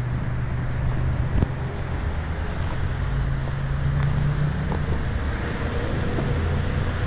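Road traffic: a motor vehicle's engine running close by, a low hum that edges up in pitch and then drops about four and a half seconds in, with one sharp knock about a second and a half in.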